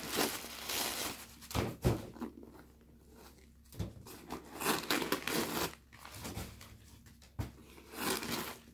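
Crinkling and rustling of the crumpled white paper stuffing being pulled out of a new handbag, in irregular bursts, with a few soft knocks of the bag being handled.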